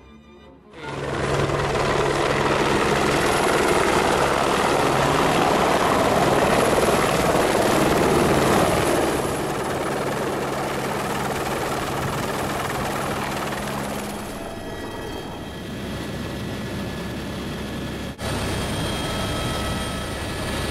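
Helicopter rotor and turbine noise starts suddenly about a second in and runs loud and steady as the helicopter hovers close by, with a deep, even drone from the blades. After an abrupt cut near the end comes a steadier, lower drone with a thin turbine whine, heard from inside the cabin.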